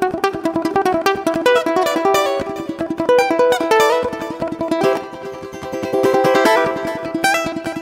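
Balalaika music: a fast plucked melody over a steadily repeated low note.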